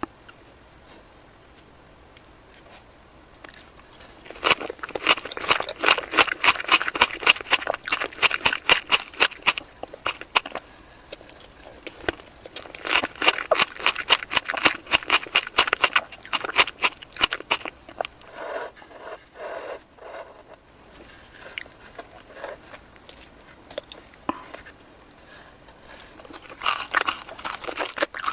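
Close-up chewing and wet mouth sounds of someone eating strawberry cake, in long bouts of dense rapid crackly smacking, starting about four seconds in with a short pause around ten seconds and another stretch near the end.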